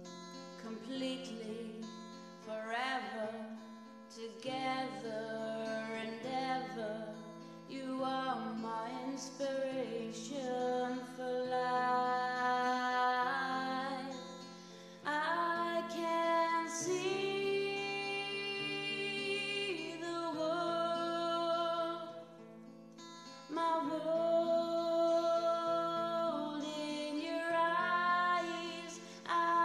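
A song: a woman singing over strummed acoustic guitar.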